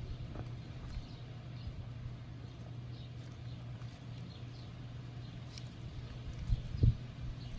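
Bees buzzing in a steady low hum, with faint bird chirps and a couple of dull knocks near the end.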